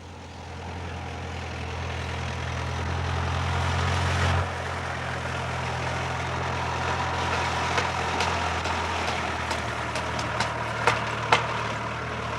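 A heavy engine running steadily. It grows louder over the first four seconds and drops back suddenly. Scattered sharp clicks and knocks come through in the second half.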